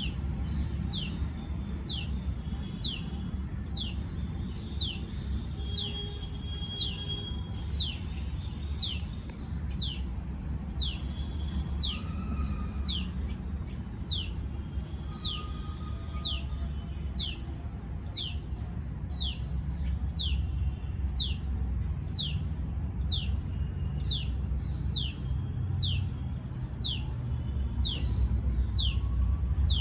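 Tailorbird giving its repeated call: a long, steady series of sharp notes, about one a second, each falling steeply in pitch. A low background rumble runs underneath.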